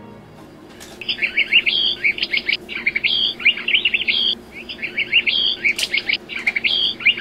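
Birdsong: starting about a second in, a quick, high twittering phrase repeated several times with short gaps between, each repeat much like the last. A faint steady hum lies underneath.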